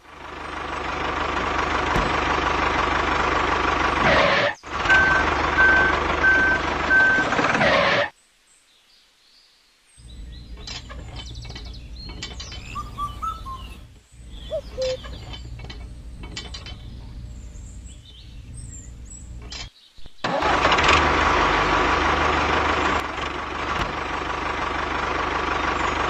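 Steady engine-like running noise of a model tractor, with a few short high beeps about five seconds in, cutting off suddenly about eight seconds in. After two seconds of silence come quieter clicks and knocks of plastic parts being handled as a toy cultivator is hitched to the tractor. The engine noise returns about twenty seconds in.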